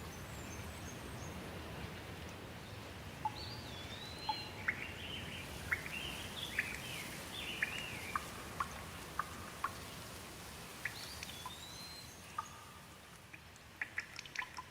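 Steady rain with birds calling over it: a string of whistled, chirping calls that rise and fall. Near the end the rain sound drops and a run of sharp ticks begins.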